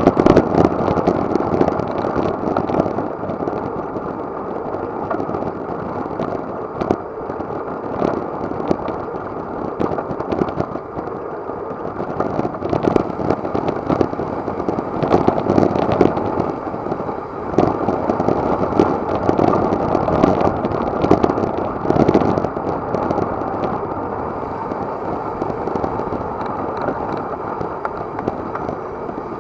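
Wind buffeting an action camera's microphone during a fast road bike ride: a heavy rush with crackles, swelling and easing in waves.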